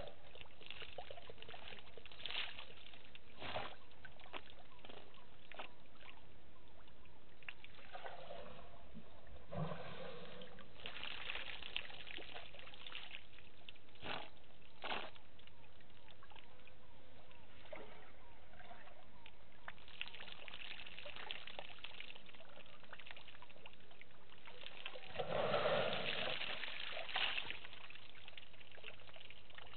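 African elephant bull drinking at a waterhole: water trickling and splashing as his trunk draws it up and empties it into his mouth, with scattered small clicks. A louder rush of splashing water comes about 25 seconds in.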